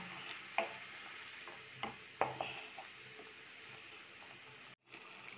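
Onion paste frying in oil in a nonstick pan, a faint steady sizzle, with a spatula stirring and knocking against the pan a few times in the first half. The sound cuts out for a moment near the end.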